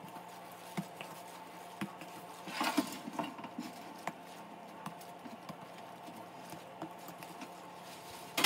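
Hands shaping and setting down bread dough rolls on a countertop: scattered soft taps and pats, with a short burst of handling noise about three seconds in, over a steady low hum.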